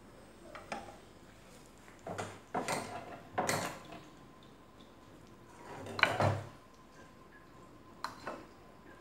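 Kitchen clatter: a handful of knocks and short scrapes of utensils and dishes, the loudest about six seconds in.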